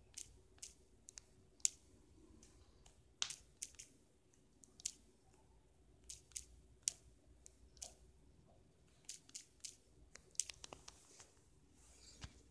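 Light taps of typing on a smartphone's touchscreen number keyboard: short sharp clicks in quick runs of a few, with pauses between.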